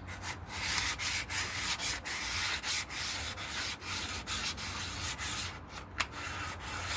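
Sandpaper rubbing over the primed wooden body of a guitar in quick back-and-forth strokes, about two to three a second, smoothing the white primer along the sides and edges.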